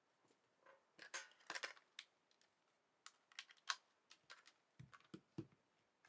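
Faint clicks, taps and light rattles of a smartphone and small parts being handled on a workbench, with a few soft low bumps about five seconds in.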